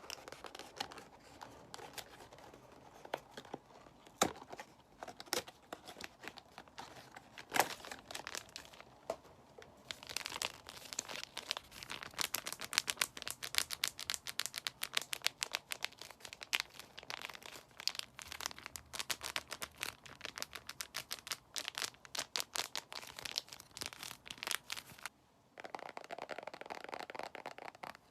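ASMR trigger sounds of crinkly material handled close to the microphone. It starts with scattered light ticks, then about ten seconds in it turns into dense, fast crinkling and crackling, pauses briefly near the end, and gives way to a softer rustle.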